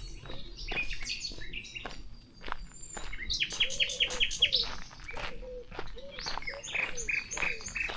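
Wild birds chirping and calling, with a quick run of rapid falling chirps about halfway through and a steady series of lower repeated notes after it.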